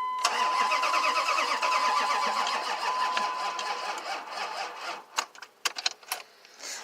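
Starter cranking the 2003 Dodge Ram's 5.9 Magnum V8 for about four seconds without it firing, fading as it goes, with the dash chime sounding at the same time. Then come several sharp separate clicks. It is a no-start on jumper cables that aren't putting out enough voltage to start the truck.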